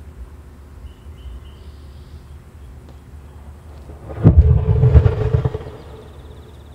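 An 18650 lithium-ion laptop cell rupturing in thermal runaway inside a sealed fabric burn bag: a sudden pop about four seconds in, then about a second and a half of loud gas venting that dies away.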